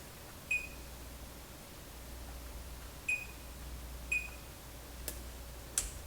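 Multimeter in diode-test mode giving three short, high beeps as the probes are touched to output transistor leads, followed by two sharp clicks near the end.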